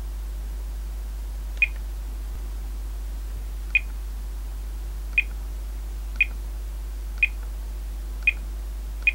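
Seven short high beeps from a Thermo Scientific RadEye G-10 gamma survey meter, one with each press of its menu buttons, spaced one to two seconds apart. A steady low hum runs underneath.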